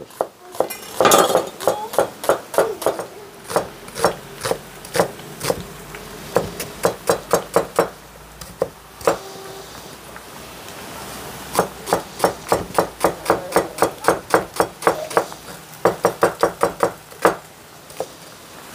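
Broad chef's knife slicing halved onions into half-rings on a wooden cutting board: quick runs of sharp knocks as the blade strikes the board, with a short pause near the middle.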